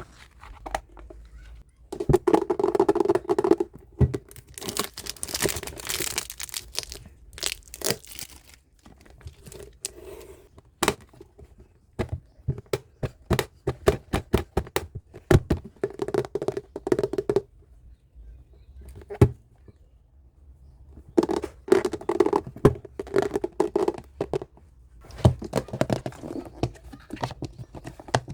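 Plastic packaging crinkling and being torn open by hand in irregular bursts, with scattered clicks and knocks as the items are handled.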